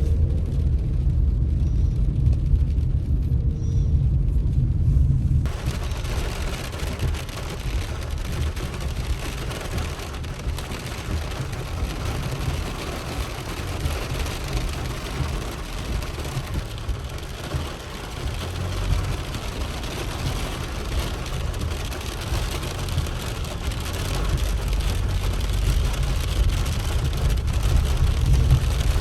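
Car driving on a rainy road: a steady low road rumble, and about five seconds in a steady hiss suddenly comes in over it.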